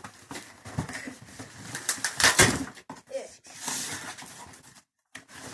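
Cardboard packaging being torn and pulled apart by hand: an irregular run of ripping, scraping and crackling, loudest about two seconds in.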